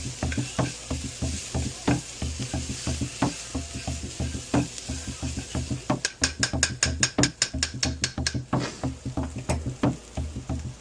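Onions, garlic and spices sizzling in a pan while a utensil stirs and scrapes them in quick repeated strokes. About six seconds in, the strokes turn into a couple of seconds of sharper, rapid clicking against the pan.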